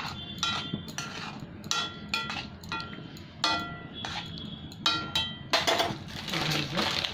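A metal spoon clinking and scraping against the side of a metal kadai as a thick curry is stirred: an irregular string of short, ringing clinks.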